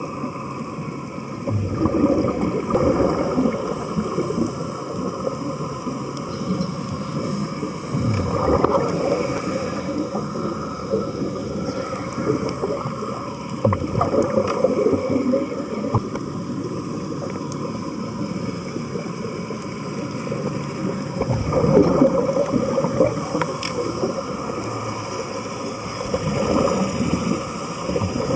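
Muffled underwater noise with gurgling air bubbles, swelling in surges every few seconds, typical of helmet diving with air pumped down to the helmet.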